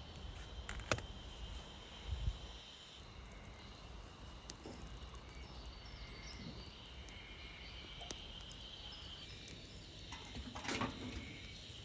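Outdoor ambience of insects chirring steadily, with a few short clicks and knocks scattered through it, the loudest near the end.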